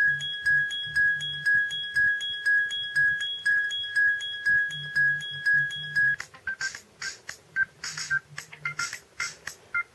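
Kyocera Milano cellphone playing ringtones through its small speaker. A steady high tone pulses about twice a second and cuts off about six seconds in. A different ringtone of quick, choppy electronic beeps and clicks follows.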